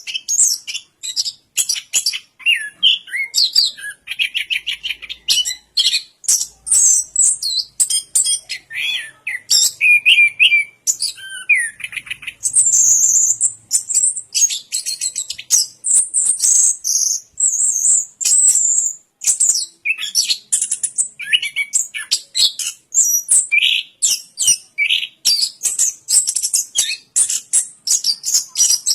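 Chestnut-capped thrush (anis kembang) singing a continuous, rapid and varied song of short chirps, trills and whistled glides, mostly high-pitched, with hardly a pause.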